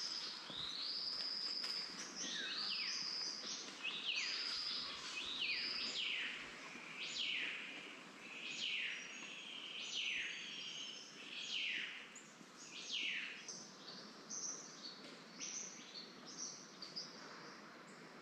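A bird calling over and over, each call a high note that sweeps steeply downward. The calls come about every second and grow fainter and more scattered toward the end.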